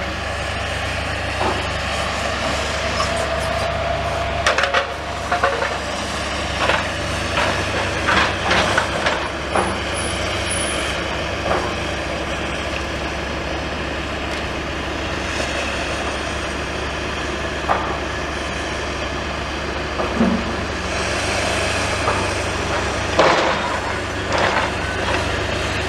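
Demolition machinery's diesel engine running steadily, with irregular knocks and clatters of rubble and debris being dug and scooped.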